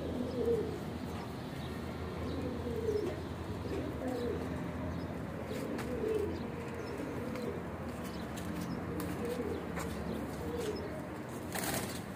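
Domestic flying pigeons cooing, short low throaty coos repeating about every second or two, with a brief rustling burst near the end.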